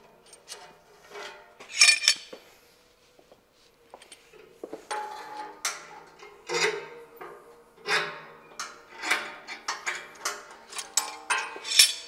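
Steel bar clamps being unscrewed and taken off the steel frame of a press brake: a string of irregular metal clanks and clicks, the loudest about two seconds in and again at the end, over a faint steady hum.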